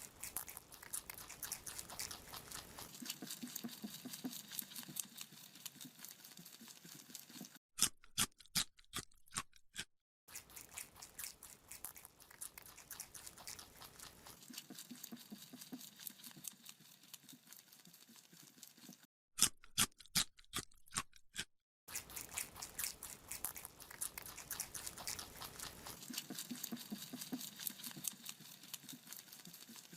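Rabbit chewing a carrot: a rapid, steady run of small crunches. Twice it breaks into a short stretch of sharper, separate crunches set apart by brief silences.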